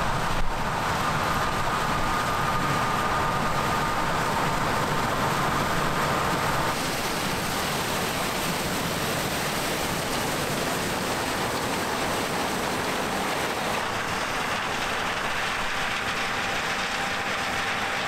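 John Deere S780 combine harvester running through standing corn: a steady wash of machine and crop noise with a faint high whine over the first several seconds. About seven seconds in the sound shifts a little and drops slightly in level.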